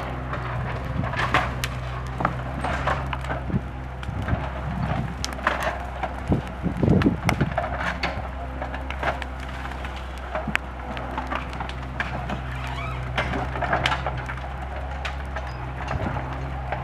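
JCB mini excavator's diesel engine running steadily under the sharp cracking and snapping of a burning timber bonfire. A louder spell of knocking and rumbling comes about seven seconds in.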